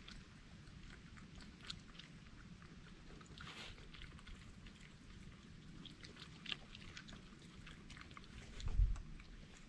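Wild animals chewing and crunching food up close, in a scatter of small wet clicks and crackles. There is a single low thump near the end.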